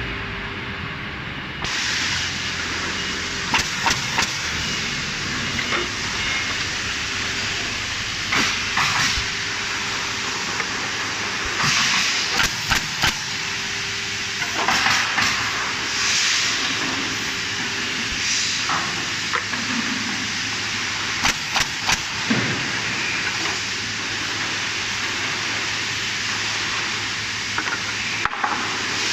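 Automatic pallet nailing machine running: its row of Bostitch pneumatic coil nailers fires in quick bursts of three or four sharp shots every few seconds, over a steady hiss of air and machine noise.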